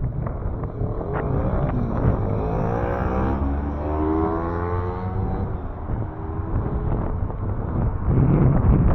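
A car passing by, its engine tone rising and then falling away through the middle, over wind noise on the microphone.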